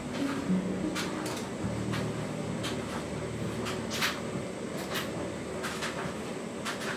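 Soft background music with a few short, irregular clicks and knocks over it.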